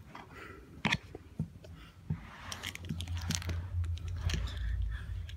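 Phone handling noise: a sharp click about a second in, then rustling and rubbing right at the microphone with a low rumble, as the phone is moved and a small plastic figure is handled close to it.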